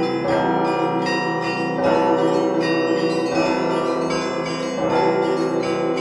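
Russian Orthodox church bells rung in a continuous peal, heard close up from the belfry tier: a deep bell struck about every second and a half under quicker strikes of smaller bells, all ringing over one another.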